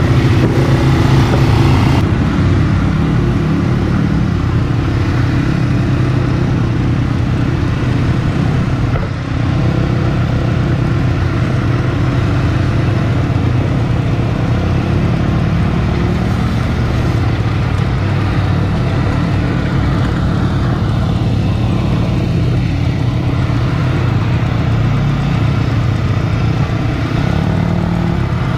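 ATV (quad bike) engine running steadily under way, heard close from the rider's own seat.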